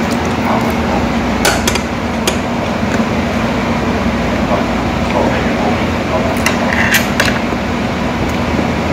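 Steady restaurant background noise with a low hum and indistinct voices, broken by a few sharp clinks of tableware, a cluster about a second and a half in and another around seven seconds.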